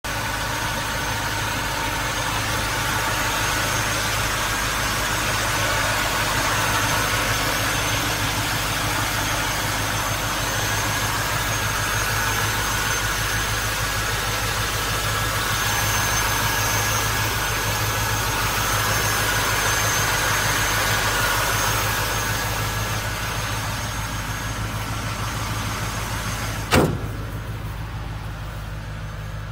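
Ford 289 cubic-inch V8 in a 1965 Mustang idling steadily with the hood open. A single sharp knock sounds near the end.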